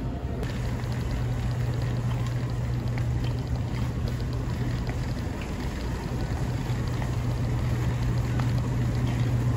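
Steady low hum and rumble of a vehicle travelling, even in level throughout, with a few faint ticks over it.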